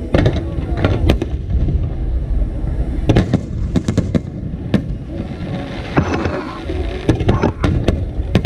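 Aerial fireworks shells bursting: irregular sharp bangs, several in quick clusters, over a steady low rumble.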